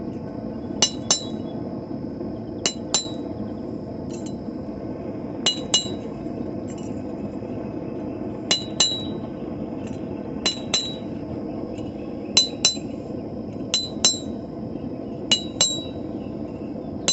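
Blacksmith's hammer striking hot steel on an anvil in quick pairs of ringing blows, a pair every couple of seconds, as texture is hammered into the piece.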